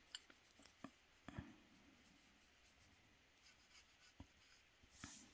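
Faint sounds of a synthetic watercolour brush working on paper: a few soft clicks and taps, most in the first second and a half and two more near the end, over near silence.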